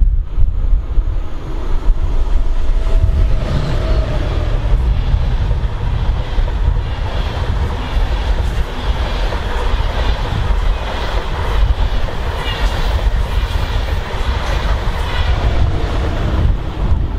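A train running past on the rails. Its running noise builds a couple of seconds in and holds. Wind rumbles on the microphone throughout.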